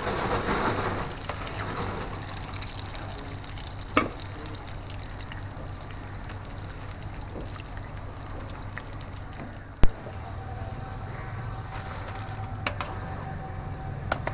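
Battered telebhaja fritters deep-frying in a large kadai of hot oil: a steady sizzling, bubbling hiss that is loudest in the first second or so, just after fresh pieces go in. Two sharp knocks come about four and ten seconds in.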